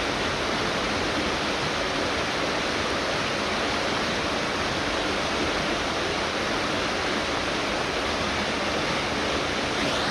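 Fast-flowing river water rushing, a steady, even sound with no breaks.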